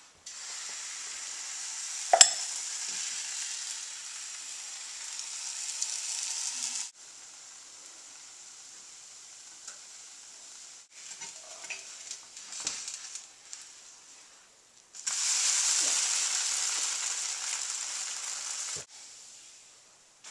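Crepe batter sizzling in a hot buttered frying pan, in two long stretches that start and stop abruptly. A sharp clack comes about two seconds in, and there are a few light knocks of the spatula and pan in the quieter middle.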